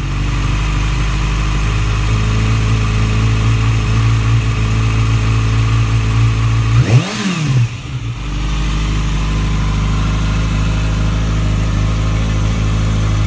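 Kawasaki Ninja ZX-6R 636 inline-four idling steadily through a Scorpion slip-on exhaust, with one quick throttle blip about seven seconds in that rises and drops straight back to idle.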